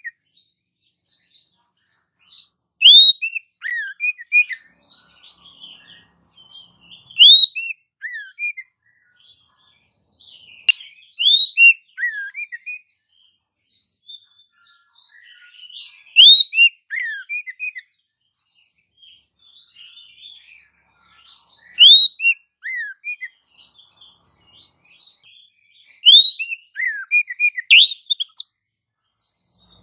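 Bird-lure recording of birdsong: a loud phrase of curved, falling whistled notes repeats about every four to five seconds over a constant busy chatter of high chirps from many birds.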